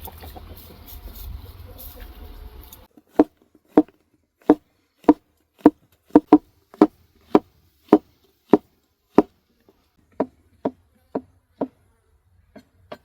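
Kitchen knife chopping food on a cutting board in steady strokes, a little under two a second, with a short pause about ten seconds in; the chopping starts after about three seconds of faint background noise.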